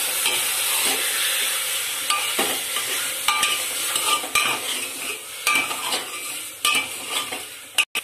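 Chicken pieces sizzling as they fry in ghee in an aluminium pressure cooker, stirred with a steel ladle that scrapes and knocks against the pot every second or so. The sizzle grows quieter toward the end.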